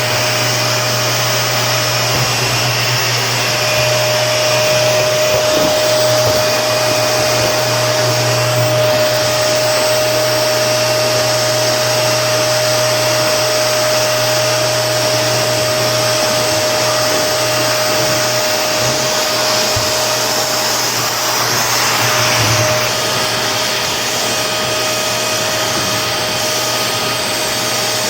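Vacuum cleaner running steadily: an even rush of air over a constant motor hum and a steady whine, with the airflow shifting briefly twice.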